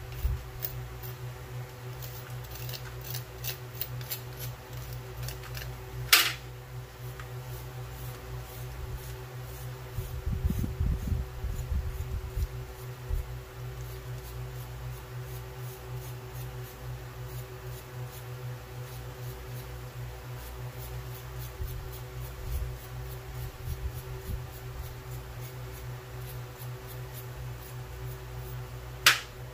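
A spoon and a small tool scraping and picking casting sand off a freshly cast silver piece held in pliers over a metal tray: light scratching and small clicks, with two sharper clicks, one about six seconds in and one near the end. A steady low hum runs underneath.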